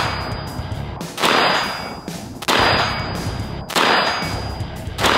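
Brownells BRN-PROTO prototype-style AR-15 rifle in 5.56 firing slow, deliberate shots: four sharp reports about 1.3 seconds apart, each with a long echoing decay and a brief high ring.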